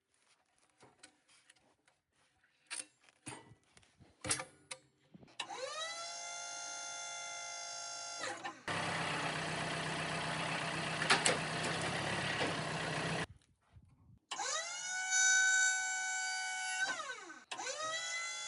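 A few scattered knocks and clicks, then a chainsaw revs up about five seconds in and holds at full throttle. It bogs into a rougher, louder cut through a cedar log for about four seconds and drops off. It revs up twice more near the end.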